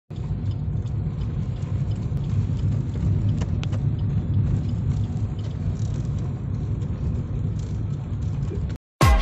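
Steady low rumble of a car driving, road and engine noise heard from inside the cabin, with a couple of faint clicks. It cuts off suddenly just before the end.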